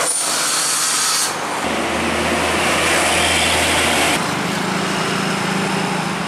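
Diesel trucks passing on a road, heard in short clips cut together, so the sound changes abruptly about a second in and again about four seconds in. Engine and tyre noise throughout, with a steady low engine hum as a large truck passes close, then a steady engine drone near the end.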